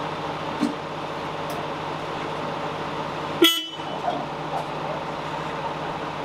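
A steady low hum with a single sharp metallic clank about three and a half seconds in that rings briefly, as the hoisted engine and gearbox assembly is manhandled out of the car.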